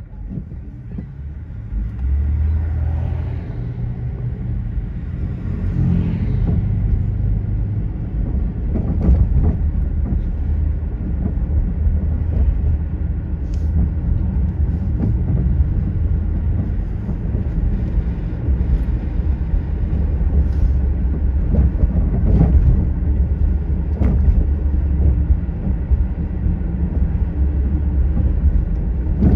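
A moving car's steady low rumble of road and engine noise, with a few sharp knocks along the way.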